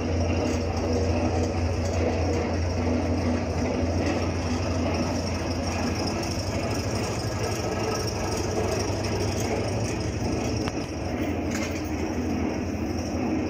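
Spomasz 450 paddle mixer running empty: its electric drive hums steadily and low as the paddles turn in the stainless-steel trough.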